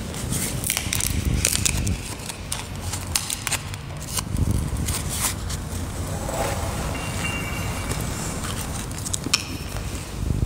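Communion host being broken and handled close to the microphone: dry crackling and sharp little clicks, thickest in the first half, with a low rumble underneath.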